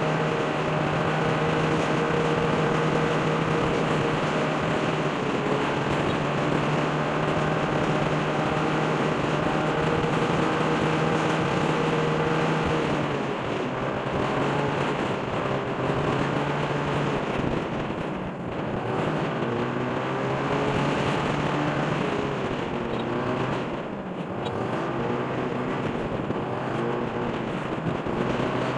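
Motorcycle engine running under way, heard from the bike itself: a steady drone for the first dozen seconds, then the pitch wanders up and down as the throttle changes, easing off briefly twice in the second half.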